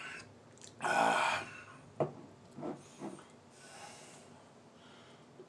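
A man's loud breathy 'ahh' exhale after a swig from a glass bottle, about a second in, followed by a sharp knock about two seconds in as the bottle is set down, and a few soft mouth and breathing sounds.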